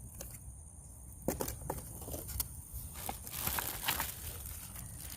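Packaging rustling and crinkling, with a few light clicks and knocks, as a bag of parts and the instruction papers are handled.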